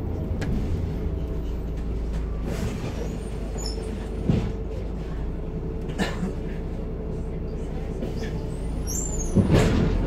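A single-deck bus's diesel engine running steadily, heard from inside the passenger cabin with road noise. Sharp knocks and rattles come about four seconds in, at six seconds and near the end.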